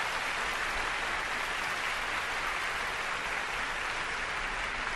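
Concert audience applauding steadily.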